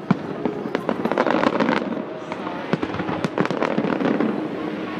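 Fireworks going off: a rapid, irregular string of sharp bangs and crackles.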